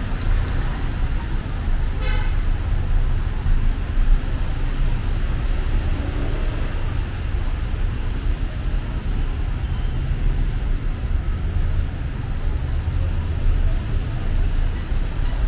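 Steady city street traffic noise from passing cars and buses, with a brief horn toot about two seconds in.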